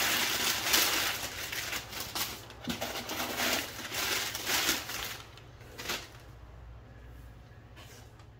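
Brown kraft packing paper being pulled out of a cardboard box and crumpled by hand: loud rustling and crinkling in quick bursts for about five seconds, then it dies down.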